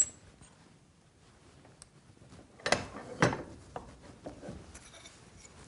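Sharpening stones and a small steel tool being handled and set down on a bench: a sharp click at the start, two louder knocks about half a second apart near the middle, then a few faint taps.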